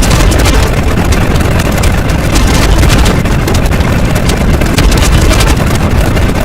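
Loud, steady rumbling noise with a dense crackle through it and no clear pitch or rhythm, of the engine-or-wind kind.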